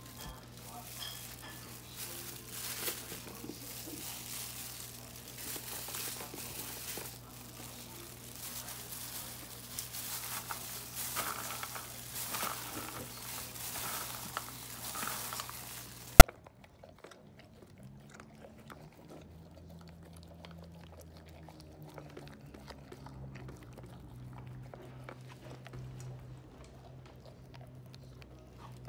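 A clear plastic food-prep glove crinkles and rustles as a hand squishes and mixes shredded chicken, white fish, kibble and steamed vegetables in a steel bowl. After a sudden click about 16 seconds in, it goes much quieter: a husky eating from a steel bowl, with soft chewing and the odd crunch of kibble.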